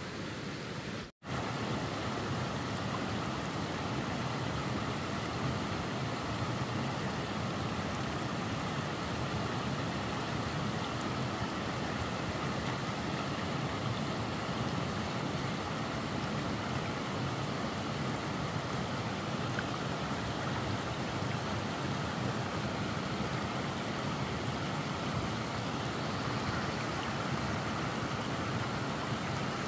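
Steady rushing noise of running water, cut off briefly about a second in.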